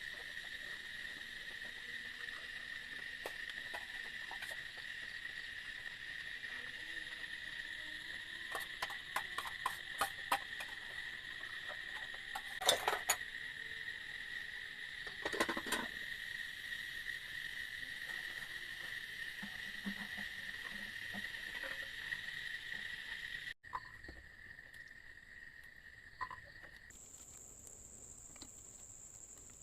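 Steady chirring of forest insects on two pitches, with a few sharp clicks and knocks near the middle. About three-quarters of the way through, the sound cuts abruptly to a quieter stretch in which a single higher-pitched insect trill takes over.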